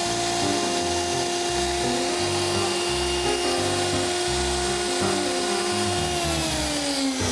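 Palm router spinning a toolpost grinder wheel with a steady high whine, which winds down in falling pitch about six seconds in. Background music plays throughout.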